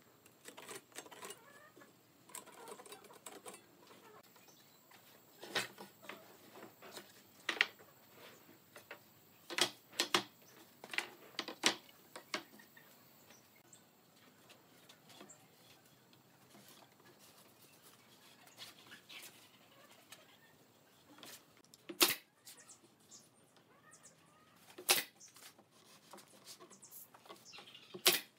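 Scattered knocks and clicks of pine slats and a metal square being handled and set down on a wooden workbench, some of them sharp.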